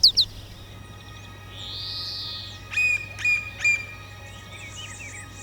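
Wild birds calling: three sharp calls about half a second apart a little under three seconds in, with softer chirps before and after, over a faint steady drone.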